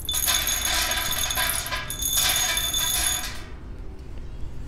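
Wood pellets poured from a metal scoop rattle and ping onto the metal bowl in the bottom of a smokeless fire pit as they scatter, with a metallic ringing. The cascade stops about three and a half seconds in.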